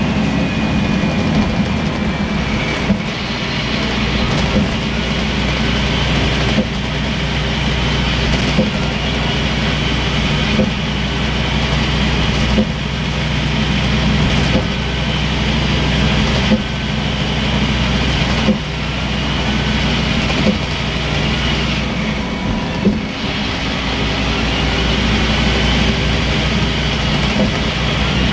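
Scania N230UB bus heard from inside the passenger saloon: its diesel engine runs steadily with a constant low drone, along with rattles from the body and a few short knocks.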